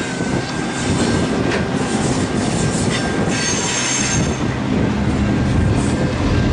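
The Ghan passenger train's carriages rolling past on the rails, wheels squealing in high-pitched spurts over a steady rumble and clatter as the train pulls away.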